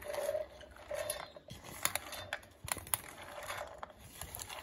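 Boiled chana dal tipped from a perforated metal strainer into a stainless-steel mixer-grinder jar, pushed along by hand: metal scraping on the jar rim and dal pattering into the steel jar, with a few sharp clicks.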